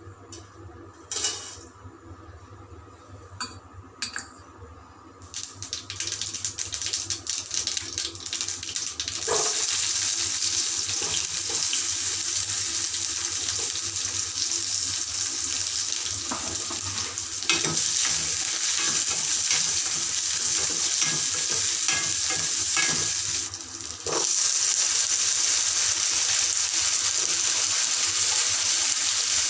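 Food frying in hot oil in a pan: a steady sizzle that builds a few seconds in and grows louder, with scattered clicks and scrapes from stirring.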